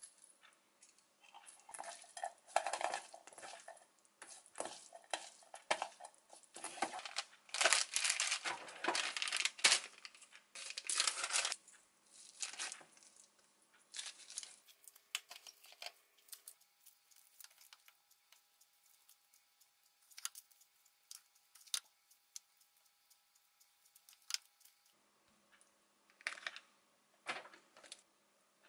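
A metal spoon clinks and scrapes in a stainless-steel bowl as spinach is seasoned and mixed, a dense clatter for the first twelve seconds or so. After that come only scattered soft taps of a wooden spoon spreading rice on a sheet of laver on a wooden cutting board.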